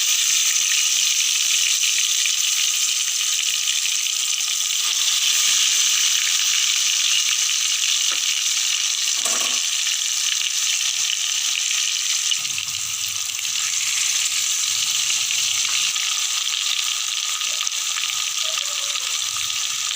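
Marinated chicken leg pieces shallow-frying in hot oil in a pan: a steady, loud sizzle.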